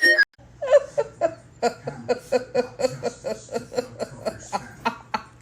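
Laughter in a long run of short, even pulses, about four a second, over a steady low hum.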